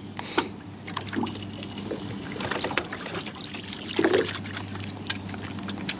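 Water lapping and trickling against the side of a small aluminum fishing boat, with scattered light knocks and handling sounds over a steady low hum.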